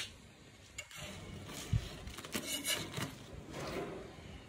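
Irregular scraping and rubbing strokes, several in quick succession about midway through.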